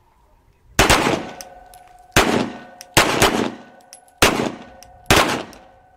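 Two handguns firing slow, deliberate untimed shots, about eight or nine at uneven intervals, some in close pairs as the two shooters fire almost together. Each shot trails off in a short echo, and a faint ringing tone lingers between them.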